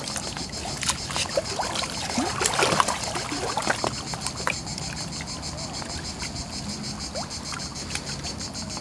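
Lake water splashing and sloshing as a person wades chest-deep toward the shore, the splashing loudest about two to three seconds in. Behind it, a steady, shrill, pulsing chorus of cicadas.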